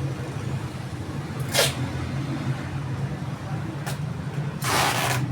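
Packing material being handled: a short sharp rasp about a second and a half in and a longer one of about half a second near the end, like packing tape pulled off a roll or plastic wrap crackling, over a steady low hum.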